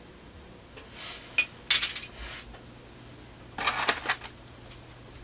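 Small hard plastic model-kit parts clattering and clicking as they are set down on and picked up from a pile, in two short bursts about a second in and again near four seconds in.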